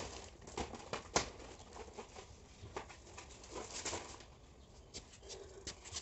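Scattered rustling and scraping with a few sharp clicks as polystyrene packaging is handled and worked off a new washing machine; the loudest click comes a little over a second in.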